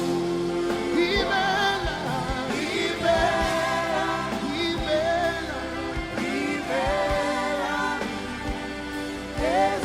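Live gospel worship music: a sung melody held on long, wavering notes over band accompaniment.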